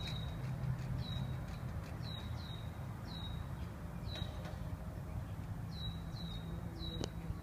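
Red-winged blackbird giving repeated short down-slurred whistled alarm calls, one or two a second with a pause near the middle, scolding after a hawk. A steady low rumble lies underneath.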